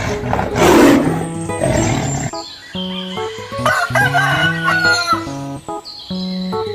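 A rooster crowing once, about halfway through, a drawn-out call lasting about a second and a half, over background music. A short, loud noisy burst comes near the start.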